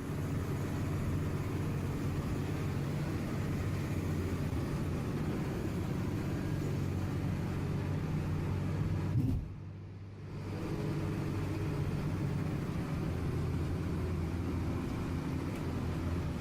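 Heavy machine engine running steadily at a low pitch. It drops away briefly about nine seconds in, then resumes.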